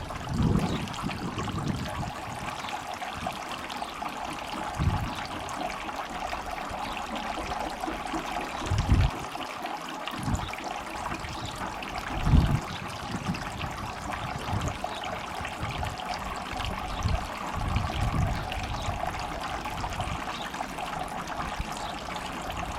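Small solar-powered garden water feature trickling steadily, water from its little waterfall splashing into the basin, with a few low thumps now and then.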